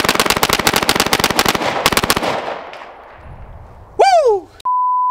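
Rapid string of 9mm shots from a Glock 19X fitted with a GFLEX binary trigger, which fires on both the pull and the release of the trigger. The burst lasts about two seconds and its echo dies away. About four seconds in comes a short cry falling in pitch, and then a steady censor-style bleep tone starts near the end.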